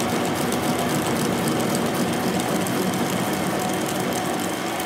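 Metal lathe running steadily, spinning a truck front wheel spindle between chuck and tailstock centre: an even mechanical whir with a fine, rapid rattle.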